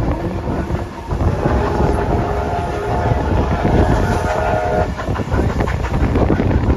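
Steam locomotive 3801's whistle sounding for about three seconds, several tones held together, starting about a second in and cutting off near five seconds. Underneath runs the low rumble and wheel clatter of the moving train, heard from a carriage window with wind on the microphone.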